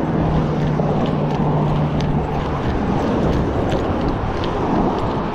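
Wind rumbling and buffeting on the camera microphone, a steady dense noise, with a low steady hum underneath that stops about two and a half seconds in.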